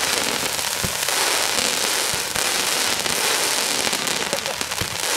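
Fireworks going off: a dense, unbroken crackle of many small pops, with a deeper thump about a second in and another near the end.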